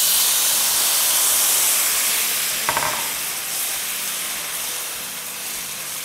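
Water poured into a hot pan of roasted vermicelli and sugar sizzles and hisses as it turns to steam. The hiss starts suddenly, then slowly dies down while a spatula stirs the mix.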